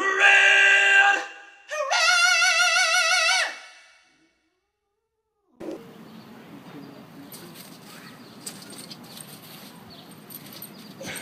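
A man singing a line in a high voice, then a long, warbling, cat-like yowl, both over by about three and a half seconds in. After a short silence comes faint outdoor background with a few light taps.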